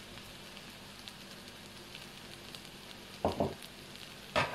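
Chicken fried rice sizzling steadily in a hot nonstick pan as it is stirred with a spatula. Two pairs of brief, louder noises come about three and four and a half seconds in.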